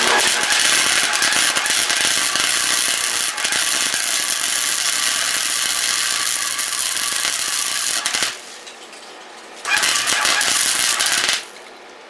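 Electric welding arc crackling and sputtering in two runs: a long bead of about eight seconds, then, after a short pause, a second run of about two seconds.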